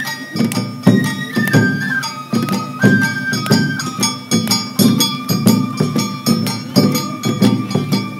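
Awa Odori festival music (hayashi): a flute holds and steps between high notes over a steady beat of drum strikes.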